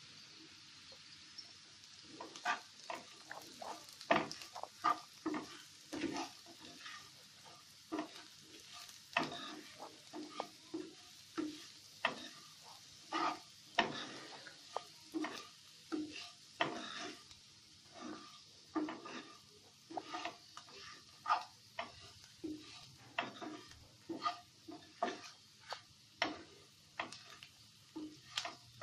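Chopped onions and ground spices sizzling in oil in a non-stick frying pan as the tadka for dal is fried. About two seconds in, a spatula starts stirring them, scraping and knocking the pan in quick strokes, one to two a second.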